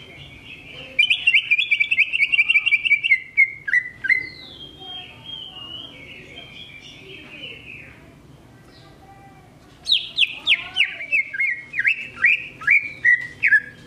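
Cucak ijo (greater green leafbird) singing. It gives fast rattling runs of notes that slide down in pitch, in two loud bursts, one about a second in and one from about ten seconds in, with softer warbled phrases between them.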